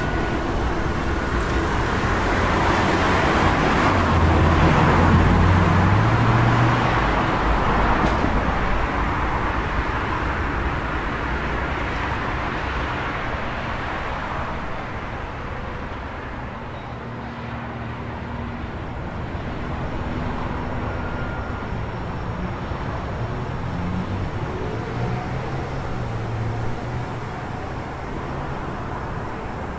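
City street traffic at night: a vehicle passes close, swelling and peaking about five seconds in with a low engine note, then fades back into the steady hum of distant traffic.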